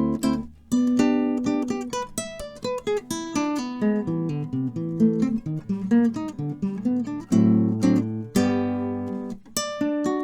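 Solo classical guitar played fingerstyle: quick runs of plucked notes over ringing bass notes. There is a brief pause about half a second in, and a strummed chord rings out about eight and a half seconds in.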